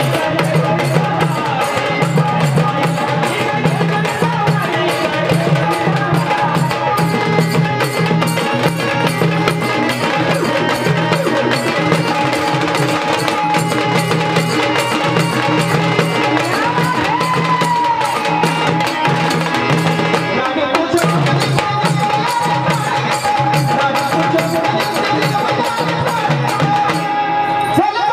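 Gondhal folk music: a pair of sambal drums beaten fast and evenly with sticks, together with a second drum, under steady held melody notes.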